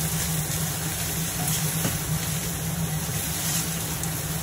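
Chopped greens stir-frying in a steel pan on a gas stove, stirred with a wooden spatula: a steady hiss with a low hum underneath.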